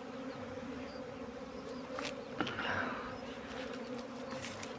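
Honeybees flying in numbers around their hives on a spring cleansing flight, a steady hum from many bees at once.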